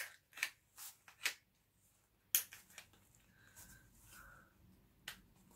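Folded umbrella and its fabric canopy being handled, giving a string of short, sharp, unevenly spaced rustles and crinkles.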